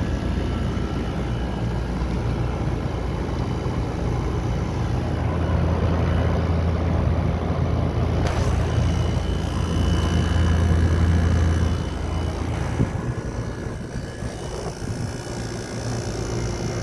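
A 2024 Midea 5,000 BTU window air conditioner running: a steady fan rush over a low hum. The low hum weakens about twelve seconds in while the fan noise carries on.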